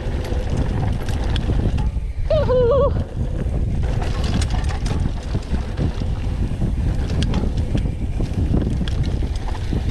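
Wind buffeting the camera microphone over the rumble of a mountain bike rolling down a rough dirt singletrack, with the bike rattling and clicking throughout. A short whoop sounds about two seconds in.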